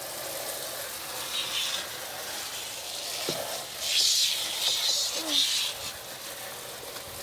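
Washing machine in its intermediate spin cycle, running steadily with patches of hiss about a second and a half in and again from about four to five and a half seconds in.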